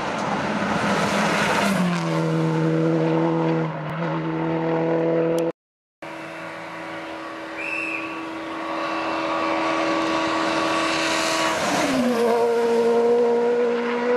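Rally car engines running hard on a tarmac special stage, the note dropping sharply in pitch about two seconds in. After a brief silent gap, another car approaches with a steadily building engine sound that drops sharply again near the end.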